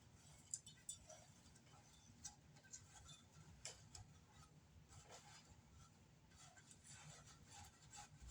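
Near silence with a few faint, irregular clicks and ticks, the two sharpest about half a second and about a second in.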